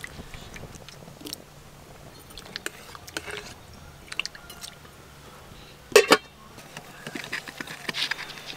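Cooking noises at a wood-fired clay stove: scattered clicks and scrapes of a ladle among potatoes in a water-filled metal wok, then a loud double metallic clank about six seconds in, as the aluminium lid goes onto the wok. A flurry of small clicks and crackles follows as firewood is pushed into the fire.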